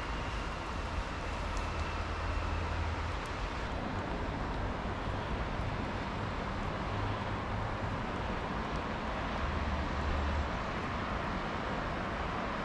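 Steady outdoor rumble of distant town traffic heard from a hilltop, with gusts of wind on the microphone adding a low rumble for the first few seconds and again near the end.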